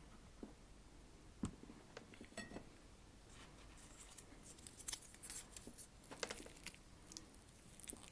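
Close-miked handling of a food container and utensils before eating: a few sharp clicks and taps, a quick run of small ticks about two and a half seconds in, then crackly rustling clicks through the second half.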